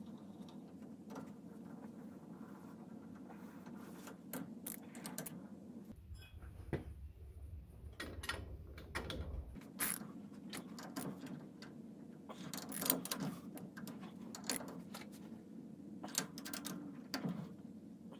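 Hand ratchet wrench clicking in irregular runs while the bolts of a disc-brake backing plate are tightened, with metal clinks of the socket on the bolts.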